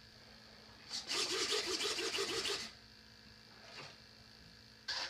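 Small RC servos whirring for about a second and a half as they drive the model's split flaps, with a few short faint whirs near the end.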